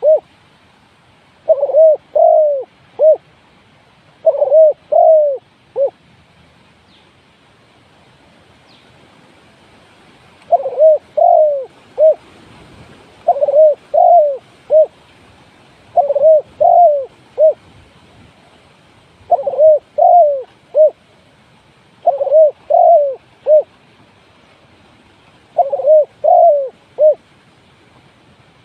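Spotted dove cooing: a repeated three-note phrase, two joined coos and a shorter final one, given about every three seconds, with a pause of a few seconds after the second phrase.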